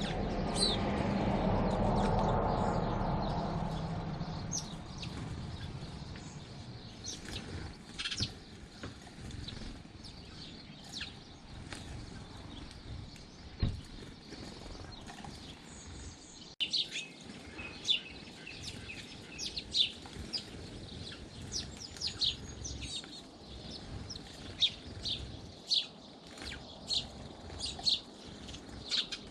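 Small garden birds chirping: many short, high calls in quick succession, more frequent in the second half. A low rumble at the start fades out over the first few seconds.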